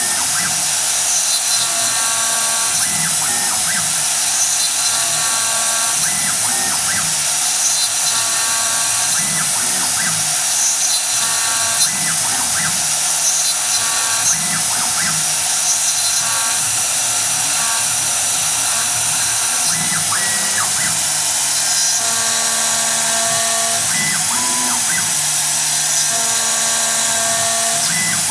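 CNC router's 2.2 kW spindle running and cutting with a steady high whine, while short steady tones start and stop every second or so as the axis motors move the cutter through its feed moves.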